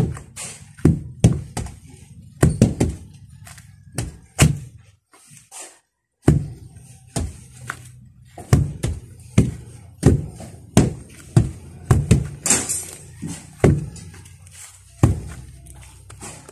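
Two wooden hand tampers thudding on bare earth as the soil is pounded to compact it. The strokes come irregularly, about one or two a second, with a short pause about five seconds in.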